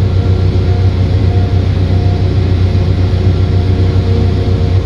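Versatile tractor's engine running steadily, heard from inside the cab as a constant low drone.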